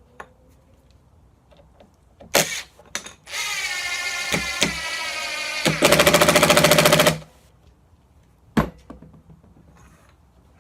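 Cordless impact driver with a Robertson bit driving a stainless steel screw into wood: the motor spins with a steady whine for about two seconds, then the impact mechanism hammers rapidly for about a second and a half as the screw seats. A sharp knock comes before the driving and another after it.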